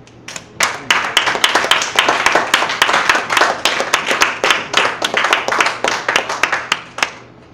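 Audience applauding: a few scattered claps swell quickly into steady, loud clapping that dies away about seven seconds in.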